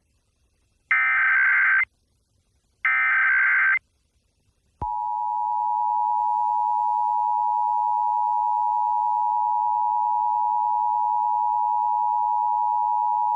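Emergency Alert System test signal. Two one-second bursts of screechy digital data from the SAME header come first. About a second later the steady two-tone attention signal (853 and 960 Hz) starts and holds for about nine seconds.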